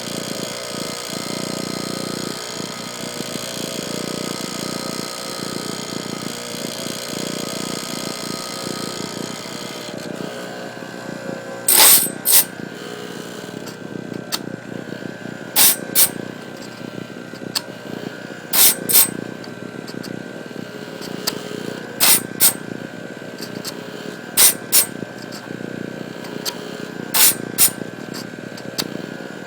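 Radial arm saw motor spinning a grinding stone, running steadily with a whine. From about twelve seconds in, a short harsh grind, often doubled, comes roughly every three seconds as the stone is brought against each bandsaw tooth in turn, sharpening the gullet.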